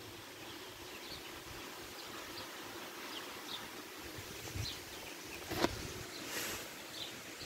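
Steady hiss of wind and rain, with scattered faint high ticks and one sharp tap about five and a half seconds in.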